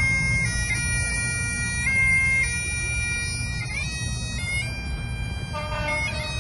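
Bagpipes playing a slow tune in long held notes over a steady drone, with a low rumble underneath.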